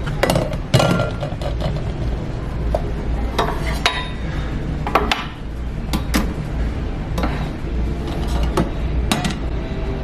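Toddler clattering toy pots and pans at a play kitchen: irregular clinks and knocks, about one a second, over a steady low hum.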